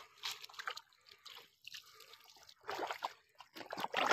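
Water trickling and dripping, with irregular small splashes and sloshing in shallow muddy water where a wet fishing net lies. It grows louder about three seconds in and again near the end.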